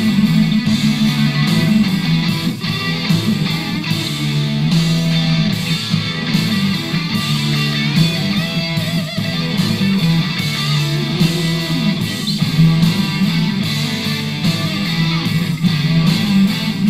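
A rock track with electric guitar and bass, played through a pair of Logitech Z150 desktop PC speakers at 60% volume as a sound test.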